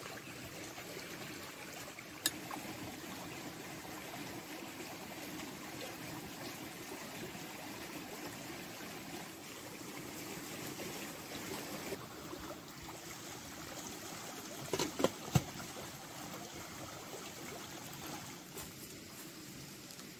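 Shallow stream flowing steadily. There is a single sharp click about two seconds in, and a quick run of three sharp clicks about fifteen seconds in.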